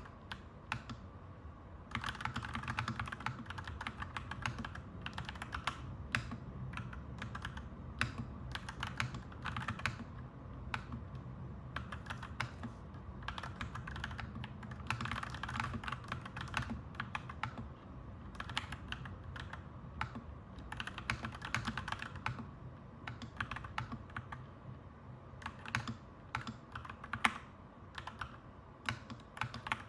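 Clacky mechanical keyboard typing in irregular bursts of fast keystrokes, with a low steady background rumble setting in about two seconds in.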